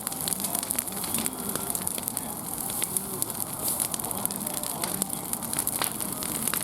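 Wood fire burning, crackling and popping irregularly over a steady hiss.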